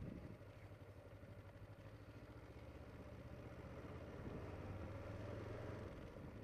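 Kawasaki Ninja 500R's parallel-twin engine running at low revs while the bike rolls slowly, heard through a helmet microphone. It gets a little louder from about four seconds in and eases off near the end.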